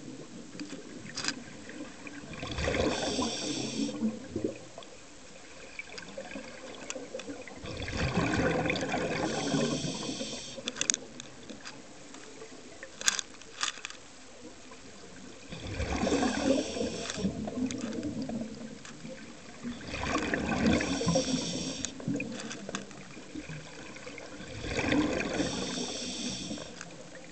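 Scuba diver's exhaled air bubbling out of the regulator underwater, five surges a few seconds apart with quieter stretches between. A single sharp click about halfway through.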